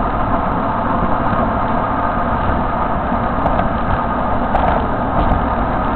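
Steady road noise heard from inside a car moving at highway speed: engine and tyre noise with no change in pitch.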